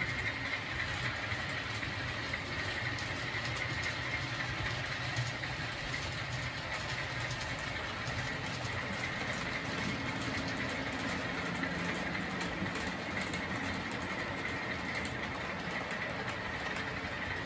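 Model trains running on a layout: a steady whir of the locomotives' electric motors and the wheels rolling on the track. A deeper hum comes in about ten seconds in, as a train of hopper wagons passes close.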